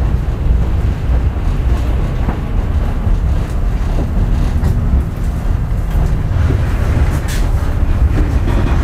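Tram running along the rails, heard from inside: a steady low rumble of wheels on track with scattered clicks and knocks, on interurban track in poor condition. A sharper knock comes about seven seconds in.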